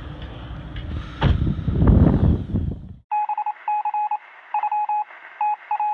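A loud low rumble on the microphone, then about three seconds in a hard cut to a high electronic beep tone keyed on and off in an irregular run of short and long beeps, like Morse code.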